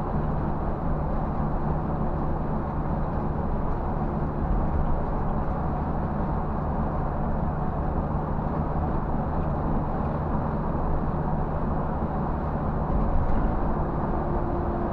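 Scania bus cruising at highway speed, heard from inside the driver's cab: a steady engine drone mixed with tyre and road noise.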